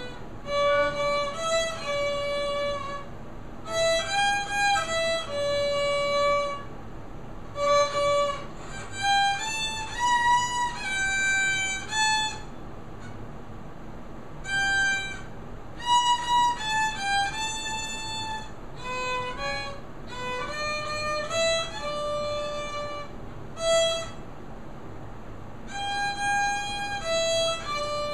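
A child playing a melody on the violin. The notes are bowed one at a time and held about half a second to a second each, in short phrases with brief pauses between them.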